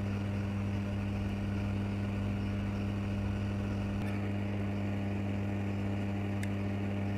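Hot-air rework station blowing steadily on a surface-mount CPU chip to melt its solder for removal, a constant low hum from its blower, with a couple of faint ticks.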